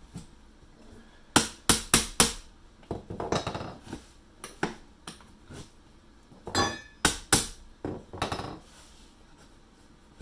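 Hammer striking a 6-in-1 painter's tool wedged under a wooden window sill to knock it loose: a quick run of four sharp strikes, then lighter taps, a brief metallic clatter and a few more strikes.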